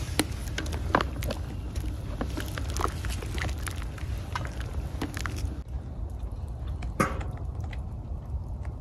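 Wooden spoon stirring thick pea soup in a large enamel pot over a wood fire, with scattered short clicks and knocks over a steady low rumble.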